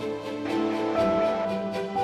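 Background music: a soundtrack of held, sustained notes that change every half second or so.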